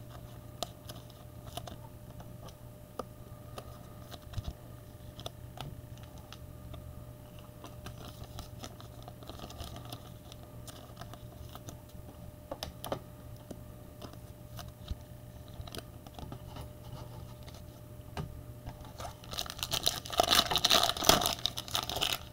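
Trading cards and plastic sleeves being handled, with soft rustles and small clicks, then near the end a louder crinkling as a foil card pack wrapper is torn open.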